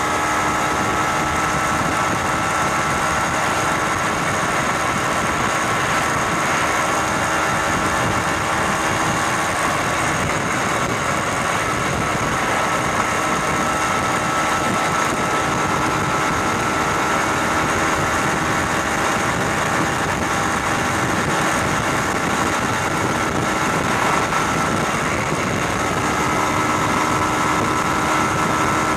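Engine of the vehicle carrying the camera, running steadily at an even cruising speed, heard from on board with wind and road noise.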